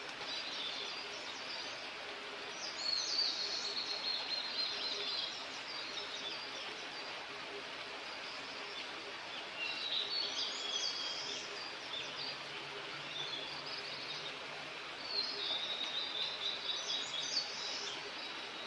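A bird singing the same short phrase three times, about six seconds apart, each phrase ending in a quick run of high notes, over a steady outdoor background hiss.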